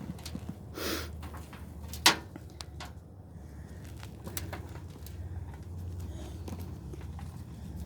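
Hands digging and sifting through loose potting soil from a potato bucket: soft rustling with a few sharp clicks, the loudest about two seconds in, over a steady low hum.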